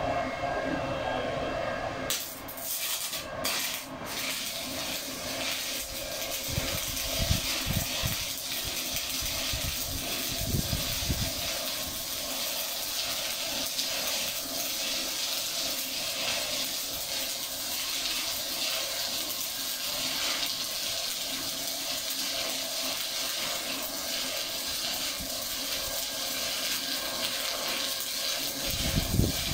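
Stick (shielded metal arc) welding: the arc catches about two seconds in after a couple of brief strikes, then burns with a steady crackling hiss as a stringer bead is run in the flat position.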